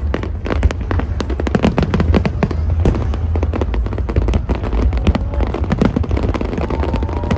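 Fireworks display: a dense, continuous run of bangs and crackles, many a second, over a steady low rumble.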